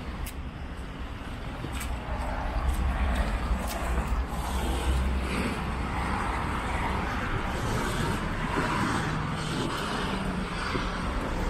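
Cars driving past on a wet cobbled street: engine rumble and tyre noise, getting louder about two seconds in and then holding steady.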